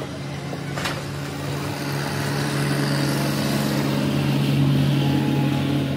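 Engine running steadily at one even speed, a low hum that grows somewhat louder through the middle.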